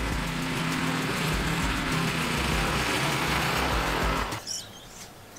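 Small petrol engine of a walk-behind lawn scarifier running steadily under load as its blades rake thatch out of the soil. The engine sound stops abruptly about four seconds in, leaving faint bird chirps.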